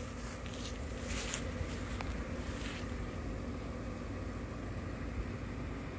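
Steady low hum of an inflatable lawn decoration's blower fan running, with a few soft rustles and a small click in the first half.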